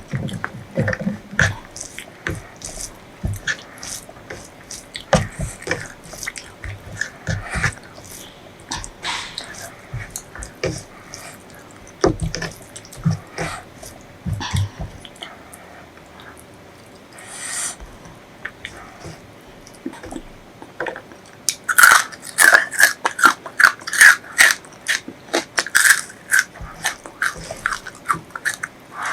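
Close-miked eating: chewing with scattered clicks, then a run of loud, crisp crunching from about 22 seconds in.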